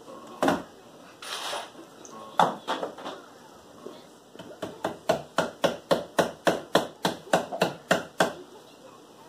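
Sharp knocks on wooden boards: a few scattered ones, then a quick even run of about fifteen taps, roughly four a second, that stops suddenly.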